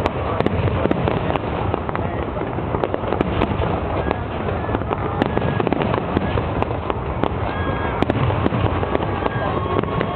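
Fireworks display: a dense, unbroken run of bangs and crackling from aerial shells going off one after another.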